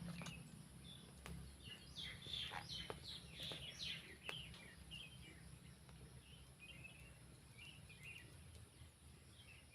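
Faint birds chirping: a run of quick falling chirps in the first few seconds, then softer short twitters, over a low steady hum with a few faint clicks.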